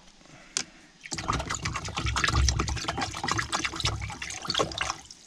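Water sloshing and swirling in a plastic tub as it is stirred briskly with wooden sticks, dissolving oxalic acid powder. The stirring starts about a second in and dies away near the end.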